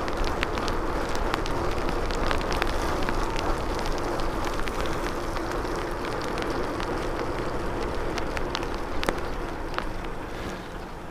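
Bicycle tyres hissing over wet asphalt while riding, mixed with wind noise, a faint steady hum and scattered sharp ticks. The noise drops near the end.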